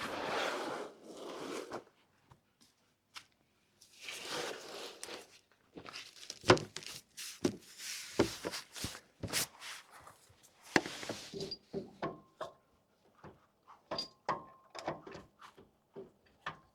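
Hand-tool work on a van's front suspension: two stretches of scraping or rustling, then a long run of sharp, irregular clicks and knocks.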